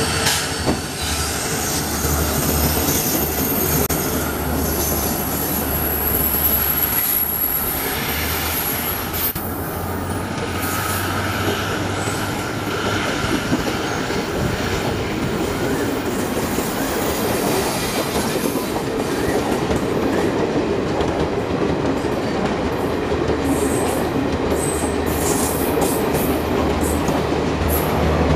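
Passenger coaches of a Garib Rath express rolling past at speed on a curve: a steady rumble and clatter of wheels on rail, with high-pitched wheel squeal.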